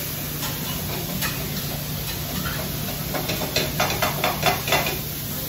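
Steak cubes sizzling on a flat-top hibachi griddle over a steady low hum. About three seconds in comes a quick run of sharp clicks, roughly five a second, lasting under two seconds.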